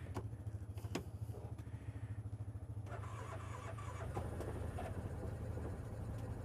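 Yamaha Viking side-by-side's single-cylinder engine cold-started at about −18 °C: two clicks in the first second, then about three seconds in the engine catches and starts right up, running on at idle.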